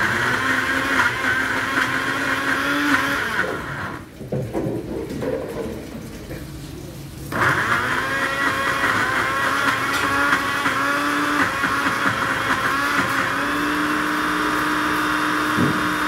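Countertop electric blender running, chopping green chillies and garlic in olive oil. Its motor drops off for about three seconds around four seconds in, then runs hard again.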